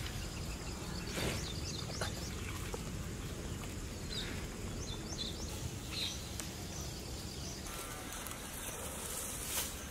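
Steady outdoor background noise with small birds chirping now and then.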